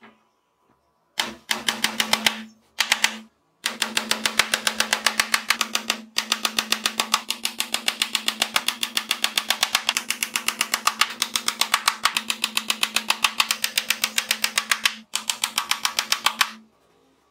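Power screwdriver driving screws into plywood: a motor hum with fast, even rattling impacts. It comes in bursts: two short ones in the first few seconds, then a long run with brief breaks about six seconds in and near the end.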